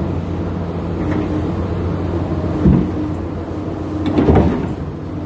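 Telescopic-arm excavator's engine running steadily as a low hum, with two knocks from the machine, one about halfway through and a longer one a little after four seconds.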